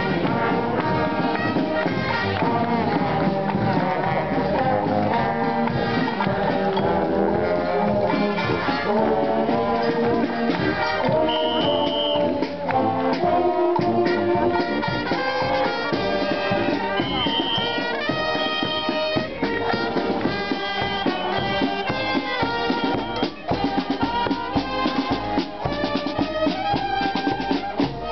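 Marching brass band playing a tune while walking past, with trombones and trumpets carrying the melody and a bass drum keeping the beat, the drum coming through more clearly near the end.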